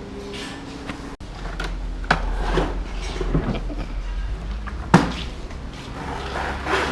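Scattered light knocks and clatter over a low steady hum, with one sharp knock about five seconds in.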